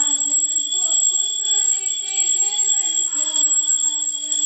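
Music: a slow melody over a steady, high, bell-like ringing.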